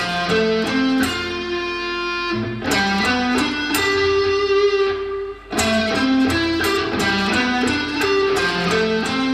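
Electric guitar, a Fender Telecaster, playing single-note chord-tone arpeggios that step up and down the chord in three short phrases. It is a stiff, by-the-book run through stock patterns that sounds artificial and unmusical.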